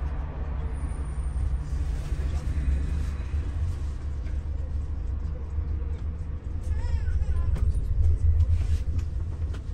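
Double-decker bus on the move, heard from on board: a steady low engine and road rumble that grows a little louder about eight seconds in.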